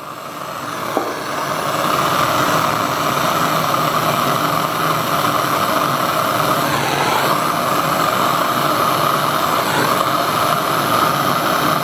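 Gas torch flame hissing steadily while brazing an aluminium refrigerator evaporator, building up over the first couple of seconds and then holding even.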